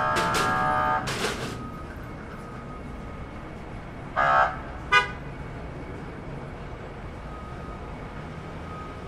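Baggage carousel warning horn buzzing for about a second, with a few sharp knocks around it. A second, shorter blast comes about four seconds in, then a sharp click, over the steady hum of the hall.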